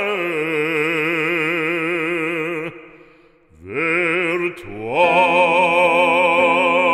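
A solo voice singing a French hymn in an operatic style, holding long notes with wide vibrato. It breaks off briefly about three seconds in, then slides up into a new note and holds it.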